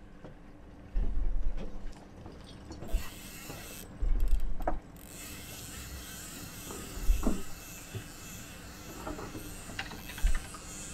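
Spinning fishing reel being wound in, its gears whirring and clicking while the rod works a fish or lure. Two loud low rumbles break in, about a second in and again at about four seconds.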